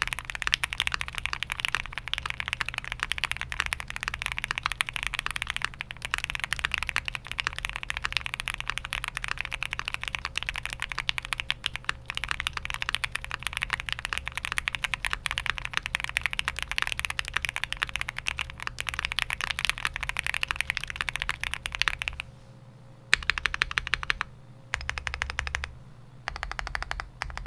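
Typing on a custom mechanical keyboard: stock Gateron Oil King linear switches on a POM plate in a fully foamed Mr. Suit case, with GMK keycaps. Fast, continuous keystrokes, breaking up near the end into short bursts with brief pauses.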